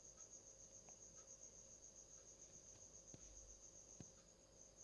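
Near silence with a cricket trilling faintly: a steady, evenly pulsed high-pitched chirp, and a few faint ticks.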